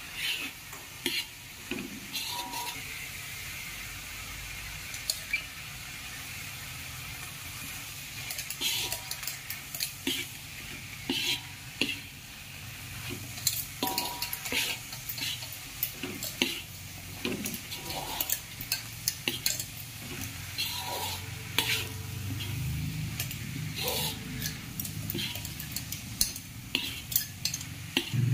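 Vegetables sizzling in a metal wok while a slotted metal spatula stirs them, scraping and clinking against the pan in quick, irregular strokes under a steady hiss; the scraping gets busier about eight seconds in.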